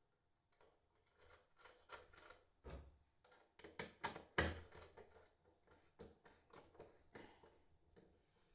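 Hands fitting flexible busbars and screws on a battery-case front panel: a run of small irregular clicks and rattles of metal parts, with a couple of louder knocks near the middle.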